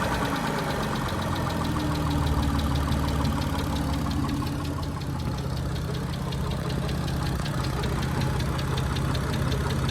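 Mitsubishi Legnum engine idling with a fast, even ticking over its hum: noisy hydraulic lifters, as the owner puts it.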